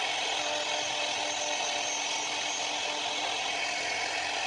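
CNC router spindle running with a small end mill cutting shapes into a wood panel: a steady whine with the hiss of the bit chipping through the wood.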